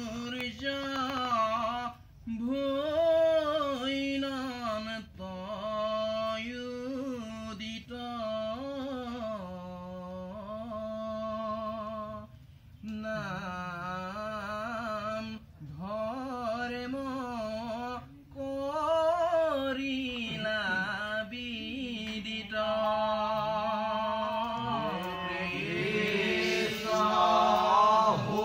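Assamese naam prasanga devotional chanting: a male voice sings slow, drawn-out, wavering phrases, with short breaks between them. Near the end the sound grows fuller and louder as more voices come in.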